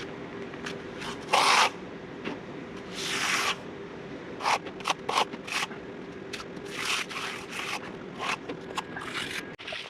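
A hand tool scraping over fresh concrete in a series of short, irregular strokes, over a faint steady hum.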